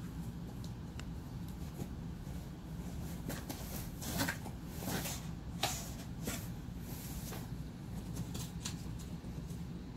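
Cardboard rustling, crackling and scraping as a husky puppy tears and chews at a cardboard box, in scattered bursts that are busiest in the middle, over a steady low hum.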